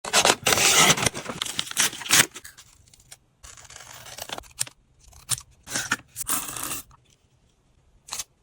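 Paper and sticker sheets being handled in journaling craft work: crisp crackling and scraping noises in irregular bursts, the loudest in the first two seconds and then shorter separate ones with pauses between.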